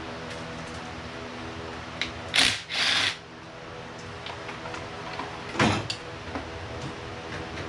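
Hand-tool and metal-parts noise from stripping down a V8 engine: two short rough bursts close together about two and a half seconds in, and another near six seconds, over a steady hum.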